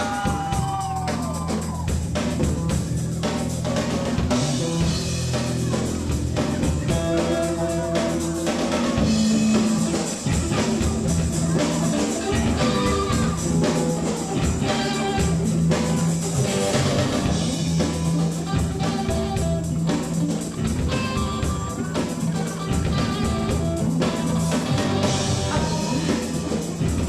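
Rock band playing the instrumental intro of a song, with a drum kit keeping a steady beat under bass and guitar and no vocals.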